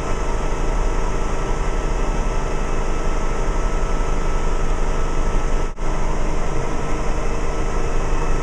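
Bell 47 helicopter running steadily in a low hover: a loud, even engine and rotor drone, with a momentary drop-out about two-thirds of the way through.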